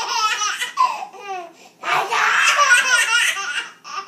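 A young child laughing out loud in bursts of giggles. A short bout comes first, then a longer, louder one about two seconds in.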